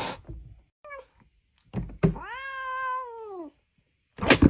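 Domestic cat meowing: a short chirp, then one long drawn-out meow that rises and falls in pitch, with a couple of dull thuds against a window pane just before it. A sudden loud burst of noise comes near the end.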